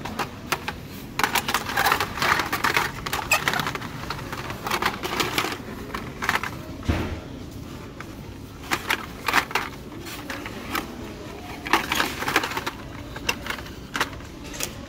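Hot Wheels cars in plastic blister packs clacking and rustling as a hand flips through them on metal store pegs: an irregular run of sharp clicks.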